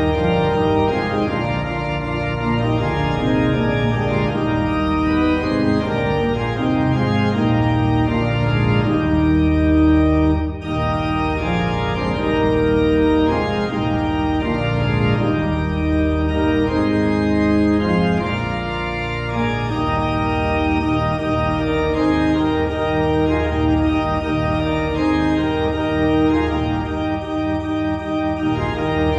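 Organ playing slow music of sustained, held chords that change every second or two, with a brief break about ten seconds in.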